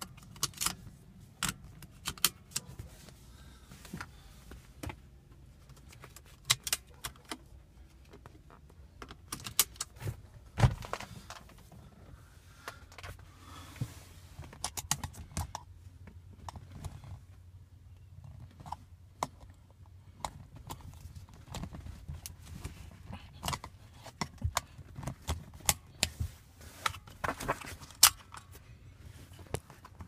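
Car seat belt hardware being handled: metal latch plates and buckles clinking and clicking at irregular intervals as the webbing is pulled, over a low steady hum.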